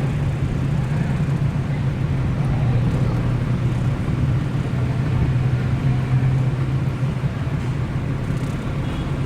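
Tour boat's motor running steadily with a low, even drone.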